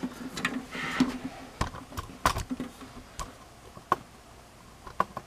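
Handling noise from a metal-cased soldering and hot-air rework station being turned around on a tabletop: about half a dozen scattered sharp clicks and knocks.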